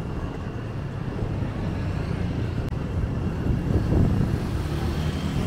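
City street traffic rumbling, with a vehicle passing close that is loudest about four seconds in.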